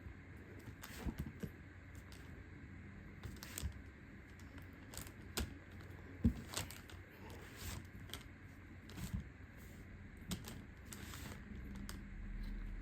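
Scattered light clicks and taps of hands and small tools working a slime cheesecake kit, pressing and spreading the slime down.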